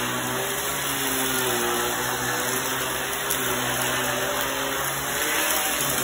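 Vacuum cleaner running steadily as its floor head is pushed through a pile of fine dirt on a rug, sucking it up. The motor's hum shifts a little in pitch, dipping briefly near the end.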